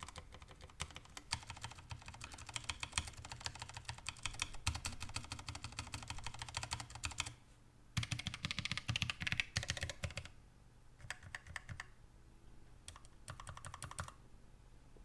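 Typing on a Keychron K1 low-profile mechanical keyboard with Gateron Brown switches. Fast, continuous keystrokes run for about seven seconds, pause briefly, come back in another quick flurry, then thin out to slower, scattered keystrokes. The clacking is neither loud nor very quiet.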